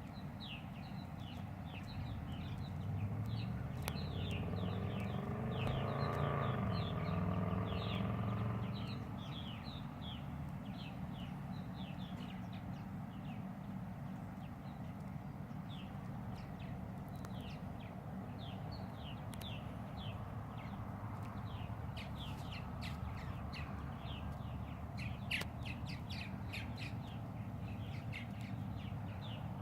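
Many birds chirping in a steady stream of short, high, downward-sliding calls. A louder low drone with a rising then falling pitch swells in and fades out between about three and nine seconds in.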